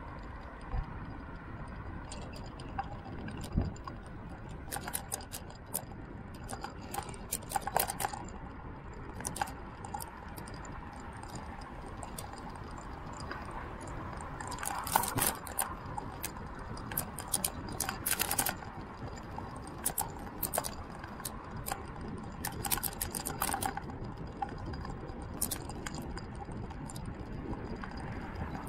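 Steady low road and wind rumble while riding along an asphalt road, with irregular light clicks and rattles that come in clusters several times.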